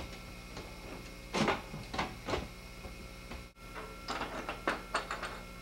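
Sheet-metal electrical box and its mounting hardware being handled: three sharp metal clanks in the first half, then a quick run of lighter metal clicks and clinks, over a steady low electrical hum.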